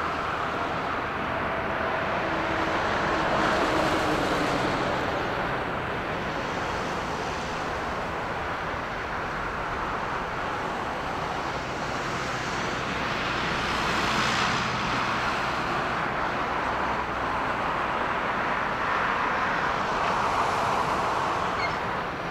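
Distant jet engine noise from a Boeing 777 freighter's GE90 turbofans slowing on the runway just after touchdown: a steady rush that swells and eases a few times.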